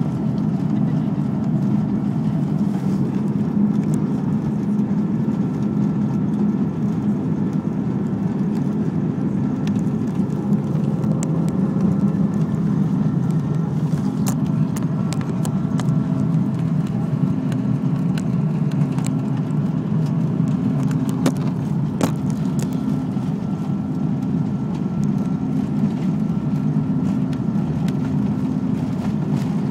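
Cabin noise inside an Airbus A330 taxiing on the ground: a steady low drone from the jet engines near idle and the airflow, with no build-up of thrust. A few clicks stand out against it.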